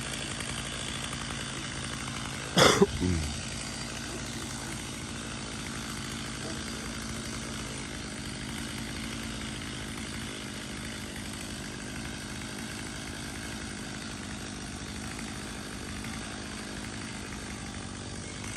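Chainsaw running steadily in a tree, with one brief, much louder sound about three seconds in.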